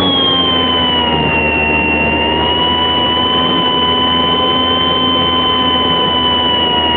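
Electric motor and propeller of a radio-controlled Cessna 182 model in flight, heard close up from the fuselage: a steady high whine over rushing wind noise. The pitch sags a little in the first second or two, then holds level.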